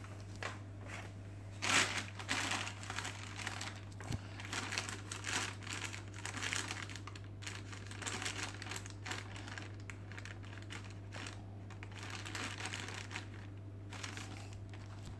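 Clear plastic packing bag crinkling and rustling as it is handled, in irregular bursts of crackles, the loudest about two seconds in.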